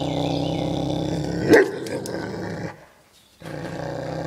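Great Pyrenees dog growling low at a centipede on the floor, in two long growls with a short pause between them. One short, much louder bark breaks the first growl about a second and a half in.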